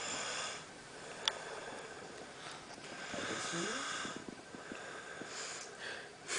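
Snoring: slow raspy breaths in and out, about three in all, one ending in a short rising tone, with a single sharp click a little over a second in.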